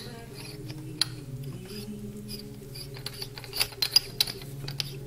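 Scattered light clicks and taps of a plastic part being handled and snapped back into place in a car's engine bay, busiest near the end, over faint background music.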